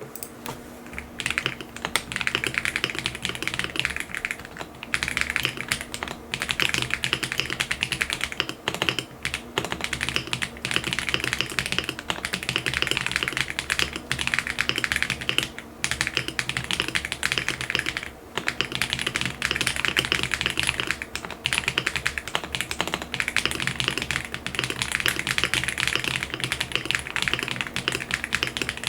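Fast typing on a KBDCraft Adam mechanical keyboard with factory-lubed Switch S² Engine linear switches, a POM plate and OEM-profile keycaps: a dense run of keystrokes broken by a few brief pauses.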